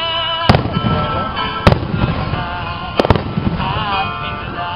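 Aerial fireworks shells bursting: four sharp bangs, the last two close together about three seconds in, over music with a singing voice.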